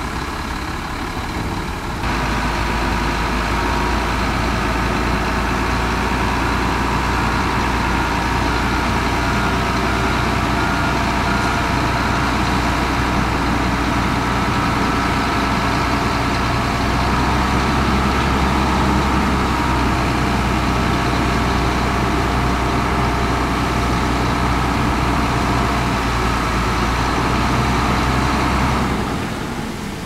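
Heavy diesel engine of earthmoving machinery running steadily with a deep, even rumble. It gets louder about two seconds in and drops away just before the end.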